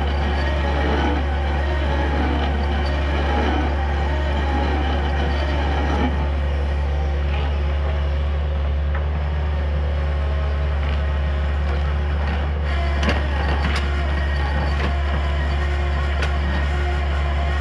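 Compact excavator's diesel engine running steadily under load, driving a hydraulic stump drill that bores into a tree stump. A few sharp cracks and knocks of wood come through in the second half.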